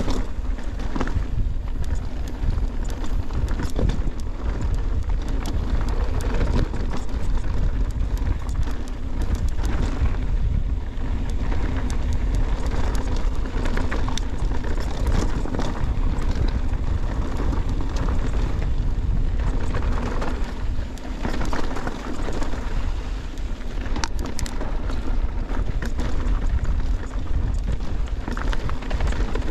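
Mountain bike riding over rough dirt trail: a steady tyre rumble with wind buffeting an action camera's microphone, and scattered clicks and rattles from the bike.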